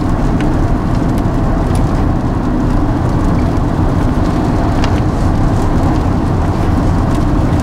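Steady road and engine noise inside the cabin of a moving car: a low rumble with a faint hum and a few light ticks.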